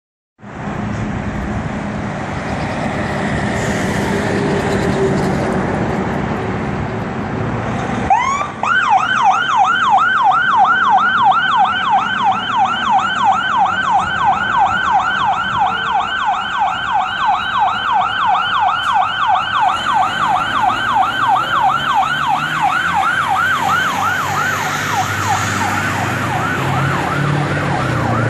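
A fire engine's diesel engine running as it pulls out, then about eight seconds in its siren starts with a short rising wail and switches to a fast yelp, about three sweeps a second. The yelp fades near the end as the truck drives away.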